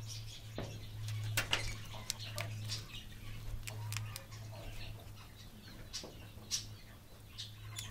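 Parrots feeding: irregular small clicks and crunches of beaks picking at and biting chopped fruit and vegetables in a dish, over a steady low hum.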